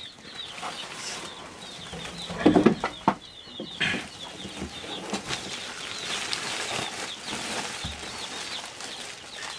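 Plastic grocery bags rustling as they are handled and set on a wooden table, with small high bird chirps in the background. A brief vocal sound stands out about two and a half seconds in.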